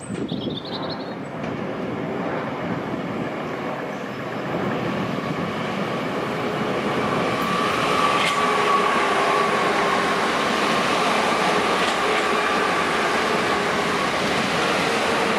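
Southeastern Class 465 Networker electric multiple unit running past on the rails, its rumble swelling about six seconds in, with a steady high whine over it. A few bird chirps at the very start.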